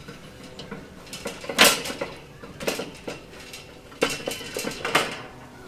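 Round steel cooking grate of a Santa Maria grill attachment being lowered on its crank: a series of metal clanks and rattles, the loudest about a second and a half in, with a short metallic ring around four seconds in.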